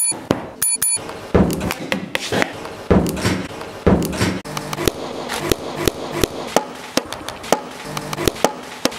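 A chrome desk bell is struck and rings briefly near the start. It is followed by a string of uneven knocks, thumps and clicks, several every second.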